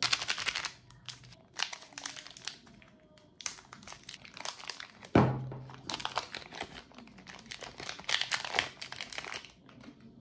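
Plastic candy-bar wrappers crinkling and tearing as Bounty bars are unwrapped by hand. The noise comes in repeated bursts, with one sudden, louder burst about five seconds in.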